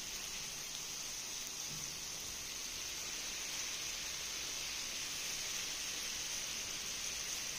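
Mutton in a spiced yogurt masala sizzling on a tawa over a high flame, a steady hiss as the yogurt's water cooks off.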